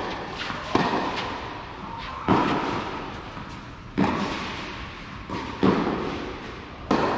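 Tennis rally on a clay court: sharp racket strikes on the ball about every one and a half seconds, with a couple of softer bounces between, each ringing briefly in the enclosed court.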